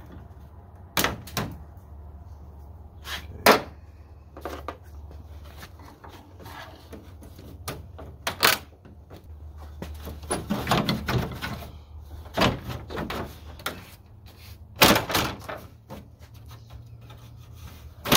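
Irregular hard plastic knocks, clicks and clunks as a 1997 Ford F150's headlight assembly is pried and worked loose from its mounting. There is a quick flurry of rattling clunks about ten seconds in, and the sharpest knocks come near the middle and end.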